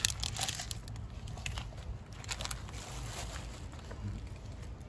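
A plastic bag crinkling and crackling as it is handled, with irregular light clicks and one sharp click at the start.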